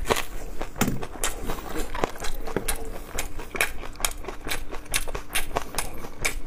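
Close-up eating sounds of a person chewing rib meat: irregular wet mouth clicks and smacks, several a second.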